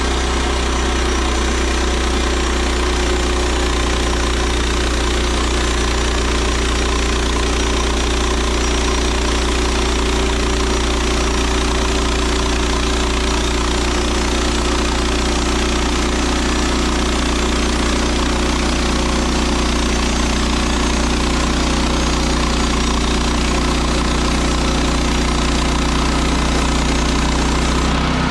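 Portable band sawmill's gas engine running steadily under a constant load, with the hiss of the band blade going through red oak.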